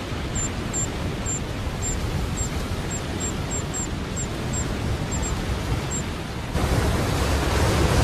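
Rushing river water as a steady hiss, with a string of short, very high chirps about two a second from dipper chicks begging for food; the chirps stop about three-quarters of the way through as the water grows louder, a waterfall close by.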